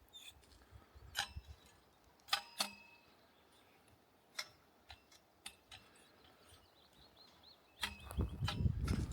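Scattered sharp clicks and ticks, a bird's short high trill near the end, and heavy low thuds in the last second.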